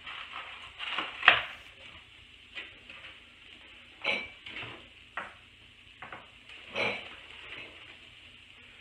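Kitchen clatter: about seven sharp knocks and taps as eggs are taken from a plastic egg carton and things are set down on the countertop, the loudest a little over a second in. Under it, a faint steady sizzle of sausages frying in a pan.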